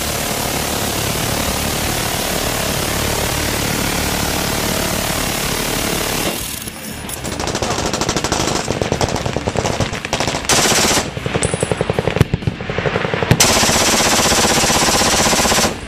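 A six-barrel electric minigun firing one unbroken stream, its shots too fast to tell apart, for about the first six seconds. Then a belt-fed .30-calibre machine gun fires rapid bursts of distinct shots, with short breaks between bursts.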